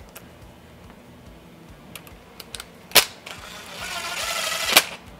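Cordless DeWalt impact driver running a hex bolt into the engine's cam chain guide. A few light clicks and a sharp knock come first, as the socket goes onto the bolt. The driver then runs for about a second and a half, getting louder, and stops sharply.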